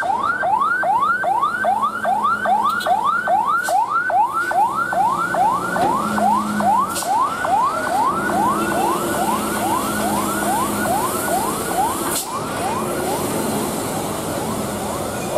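Ambulance siren sounding a fast, repeating rising wail, about three upward sweeps a second, growing faint after about twelve seconds.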